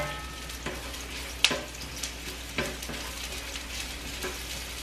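Sliced onion sizzling in hot olive oil in a frying pan, stirred with a spatula that knocks and scrapes against the pan a few times, the sharpest knock about a second and a half in.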